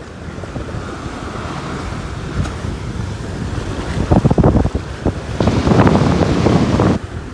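Wind buffeting the microphone over ocean surf, with gusts growing louder in the last few seconds and then dropping away suddenly near the end.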